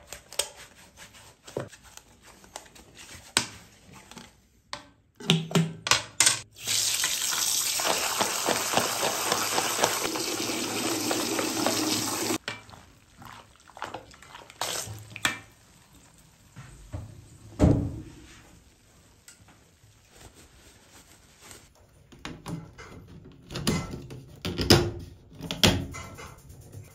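Water running from a sink faucet steadily for about six seconds in the middle, rinsing a soapy plastic exhaust-fan grille. Before and after come scattered clicks and knocks of the plastic grille being handled, with a cluster of knocks near the end as it is pressed back onto the fan.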